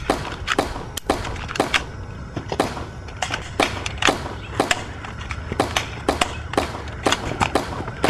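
Sharp knocks repeating at a steady pace, about two a second, over a low steady rumble.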